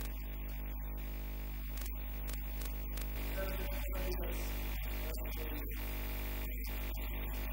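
Steady low electrical mains hum, with faint background music under it.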